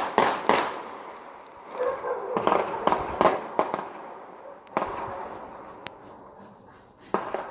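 Distant gunfire with echoes in a shoot-out: a quick run of shots at the start, another cluster about two and a half to three and a half seconds in, then scattered single shots.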